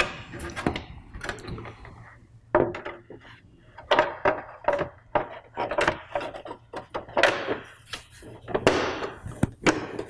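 Plastic cover of a Trion bypass humidifier being handled and pushed back onto the unit's housing against the furnace's sheet metal: a run of irregular knocks and clatter, the loudest about four, seven and nine seconds in.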